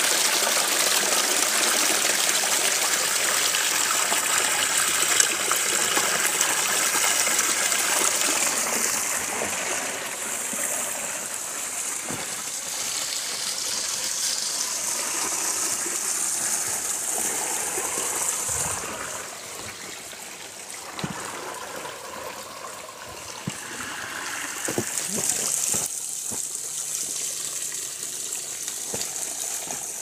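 Water from a small waterfall pouring and splashing over a rock face, a steady rush that drops sharply in loudness about two-thirds of the way through and carries on fainter, with a few soft knocks near the end.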